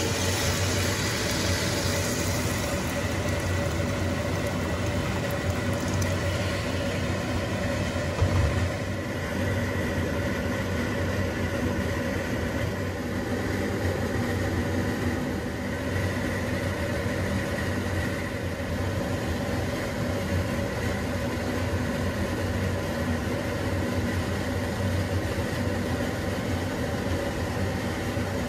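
A steady low mechanical hum and rumble with several constant tones running through it, and a short thump about eight seconds in.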